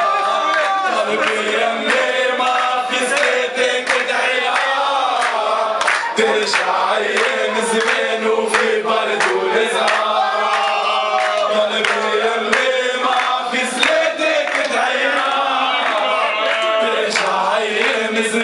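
A crowd of men chanting and singing together, with hand-clapping.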